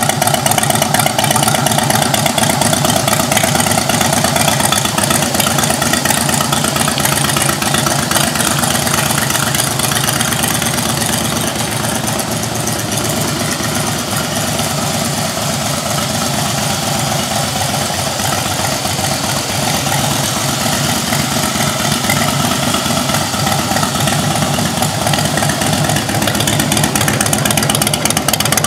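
2008 Harley-Davidson Fat Boy's Twin Cam 96B V-twin idling steadily through black mufflers, with a fast, even beat of firing pulses. It is a little quieter in the middle and louder again near the end.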